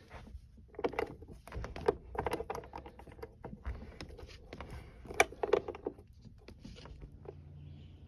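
Casement window crank operator turned by hand: a run of clicks and rattles from the gear and swing arm, with two sharper knocks, the first about two seconds in and the second about five seconds in.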